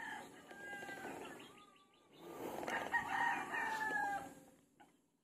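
Rooster crowing: two long crows, the second starting about two seconds in.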